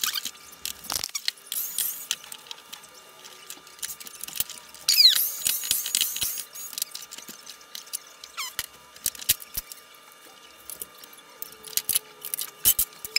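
Handling noise from a vacuum cleaner being dismantled: repeated sharp clicks and knocks of plastic parts and tools, with a few short, falling squeaks, the loudest about five seconds in.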